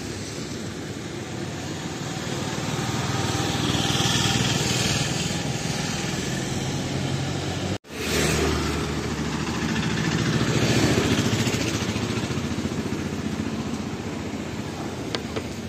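Motor vehicle traffic passing, engines swelling and fading twice, with a sudden brief dropout near the middle.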